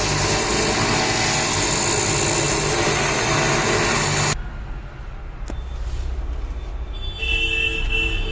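Automatic lens edger grinding the edge of a bifocal lens, a loud steady grinding that shapes the lens to fit the frame. It cuts off suddenly about four seconds in, leaving a low machine hum with a single click, and music comes in near the end.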